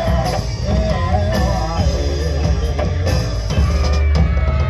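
Live Javanese gamelan ensemble playing dance music, with drums and heavy bass under a wavering melodic line.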